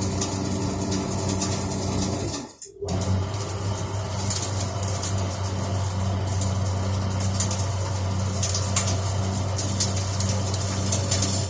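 Down-jacket recycling machine running steadily: a constant electric motor hum under the rushing of its down-suction system. The sound briefly drops out about two and a half seconds in.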